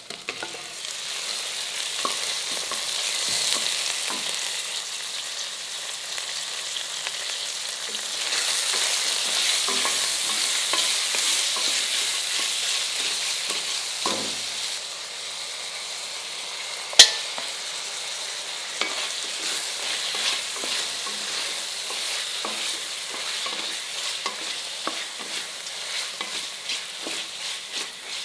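Lamb rib bones frying in hot oil with shallots and green chillies in a pressure cooker pot. The sizzle swells about a second in as the raw meat goes in, and eases off after about halfway. A spatula stirs and scrapes the pot throughout, and there is one sharp knock about two-thirds of the way through.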